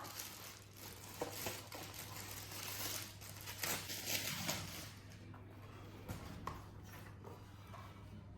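Faint rustling and crinkling of packaging with a few light knocks as the Silver Play Button box is opened and handled. It is busiest over the first few seconds and then quietens.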